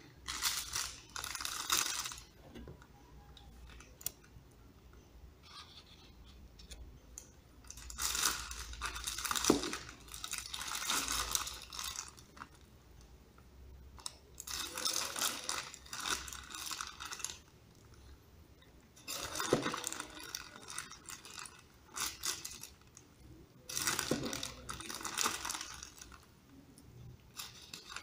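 Plastic food bags rustling and crinkling as they are handled and emptied onto a plate, in about five bursts lasting a second or more each, with quiet gaps between.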